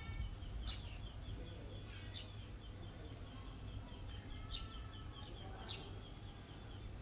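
A few short bird chirps over a steady, fast run of high-pitched ticks, with a low background rumble.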